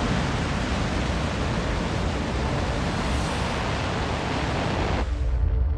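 Falcon 9 rocket's nine Merlin first-stage engines at liftoff: a loud, steady rushing noise with a deep rumble. About five seconds in, the high hiss drops away and music comes in.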